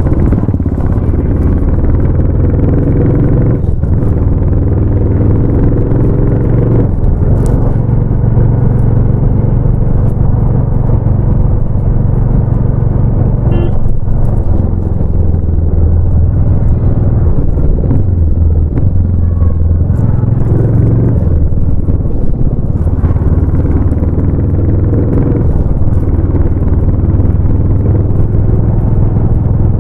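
Royal Enfield Bullet 350's single-cylinder exhaust note while riding, running steadily at speed, its pitch stepping up and down several times with throttle and gear changes.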